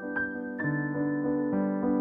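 Background piano music: slow sustained chords with a few single notes struck over them.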